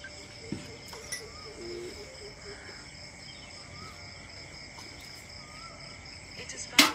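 Insects, crickets, trilling steadily at two high pitches, with a few short bird calls. A loud sharp knock near the end.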